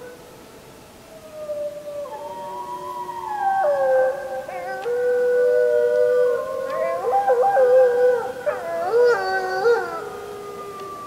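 A chorus of wolves howling, several voices at different pitches overlapping in long held notes with sudden steps in pitch. It builds from about a second in and fades near the end.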